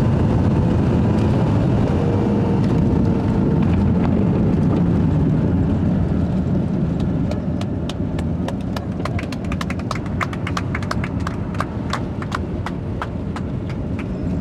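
Loud low rumble inside an airliner's cabin, easing a little after about six seconds, with a fast run of clicks and knocks through the second half.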